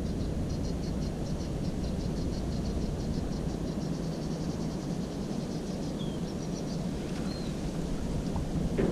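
Savi's warbler giving a fast, even series of high ticking notes for about six seconds, over a steady low rumble. A short knock comes near the end.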